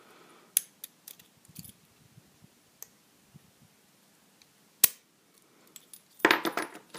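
Sharp metallic clicks from a used 40mm Master Lock padlock and its key being handled, with a loud single click about five seconds in and a short burst of rattling clinks near the end.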